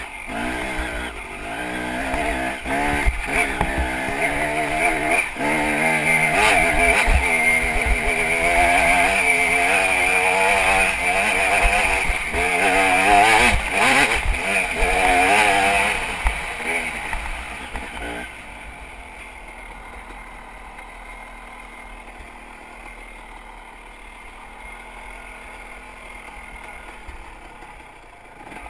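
Dirt bike engine revving hard under load on a hill climb, its pitch rising and falling with the throttle. About two-thirds of the way through, the throttle comes off and the engine runs much more quietly at low revs.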